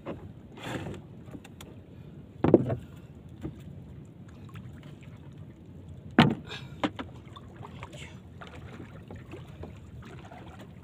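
A paddle working in the water beside a small boat, with two loud, sharp knocks against the hull a few seconds apart and a few lighter clicks over a steady low background of water and wind.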